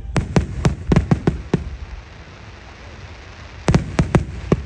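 Aerial fireworks shells bursting in a rapid volley of sharp bangs, seven or eight in the first second and a half. After a short lull, another quick run of bangs comes near the end.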